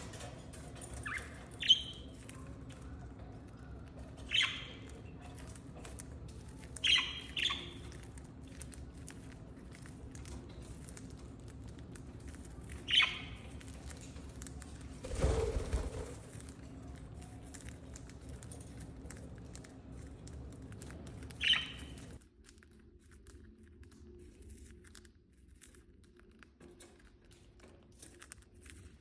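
Pet budgerigars giving short, scattered chirp calls over a steady low background hum. About halfway through comes a louder, noisier sound lasting about a second, and the hum stops about three quarters of the way in.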